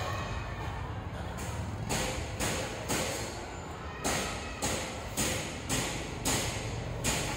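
Footsteps walking at a steady pace, about two steps a second, over a steady low rumble.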